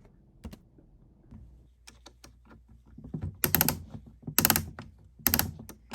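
Scattered light clicks of small hard parts being handled, then three louder clattering rattles about a second apart: mini bearings being fitted into the slots of a droid head tilt mechanism.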